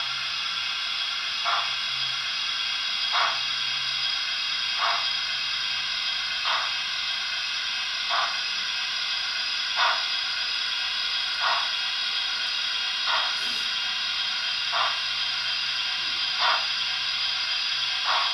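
Zimo digital sound decoder in a Hornby OO gauge Princess Coronation steam locomotive model playing its steam sound: a steady hiss with a short, even beat about every one and a half seconds.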